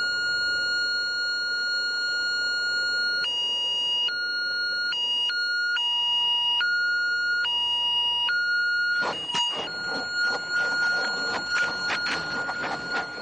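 An electronic alarm tone: a steady high beep that, a few seconds in, starts switching abruptly back and forth between two pitches. Near the end, a rapid irregular clatter of clicks joins the tone.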